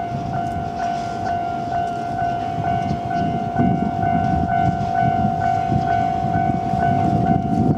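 Japanese level-crossing warning bell ringing at one steady pitch, about two strikes a second. Under it is the low rumble of a freight train running over the crossing.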